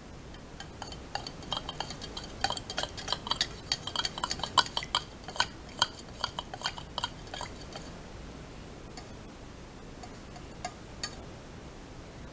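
A thin stick stirring water in a small clear cup, clinking against the cup's wall in a quick run of light taps with a faint ringing, dissolving red colouring into the water. The clinking stops after about seven seconds, followed by a few lone taps near the end.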